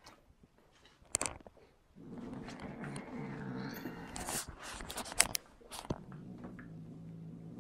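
A small white dog and a black cat play-fighting: biting and mouthing sounds, then a low, steady growl from about two seconds in, broken by a few sharp clicks.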